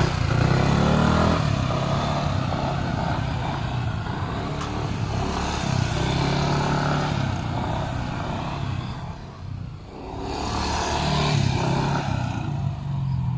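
Yamaha NMAX scooter's single-cylinder engine revving up and easing off as it leans through tight circles, rising and falling in pitch; it fades briefly about two-thirds of the way through, then comes back.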